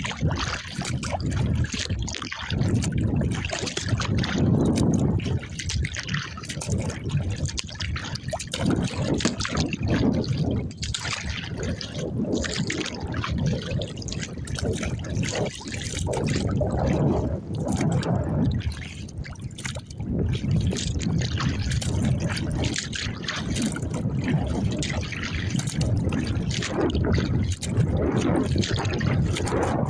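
Lake water sloshing and trickling around a kayak on wind-driven chop, with heavy wind buffeting the microphone in uneven gusts.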